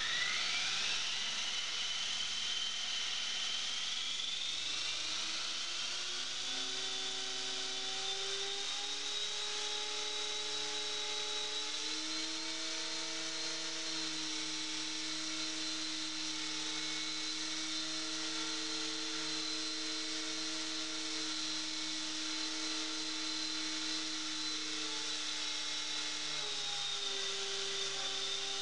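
CopterX 450 Pro electric RC helicopter's brushless motor and drive gears spooling up on the ground: a whine that rises in pitch over the first few seconds, then holds steady as the rotor head and tail rotor spin at a constant speed.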